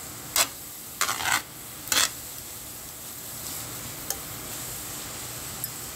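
Metal tongs scraping and clacking against a metal pan as rice stick noodles are tossed: a few sharp strokes in the first two seconds. After that comes a steady low sizzle from the noodles frying in the hot pan.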